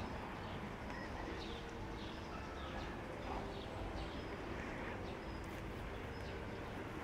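Faint outdoor ambience: a low steady rumble with short, high, downward-sloping chirps every half second or so.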